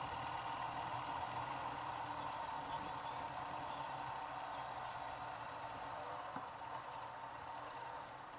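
A vehicle engine idling steadily, slowly fading.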